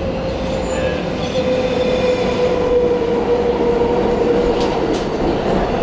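New York City subway train running, with a steady whine just above 500 Hz that slowly falls in pitch over a noisy rumble.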